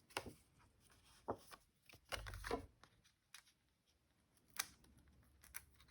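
Faint paper-crafting handling sounds: a few soft clicks and taps, with a brief rustle of paper about two seconds in.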